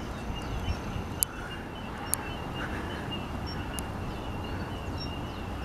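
Outdoor background noise: a steady low rumble with a faint, evenly pulsing high chirp throughout and three small clicks.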